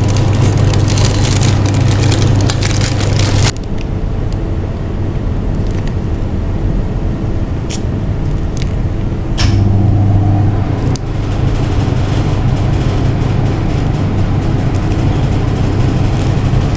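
A steady low hum, with a hiss over it for the first few seconds that stops abruptly, and a few light clicks about halfway through.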